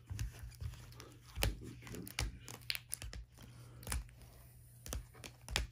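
Trading cards being handled and sorted on a tabletop: scattered light taps and clicks with soft crinkles of plastic.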